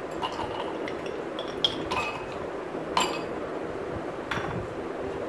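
Ice cubes dropped one at a time into a stemmed drinking glass, clinking sharply against the glass about five times, the loudest about one and a half seconds in.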